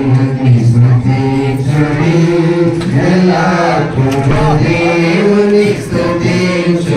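Devotional chanting: voices singing a mantra in a slow melodic line over a steady low drone.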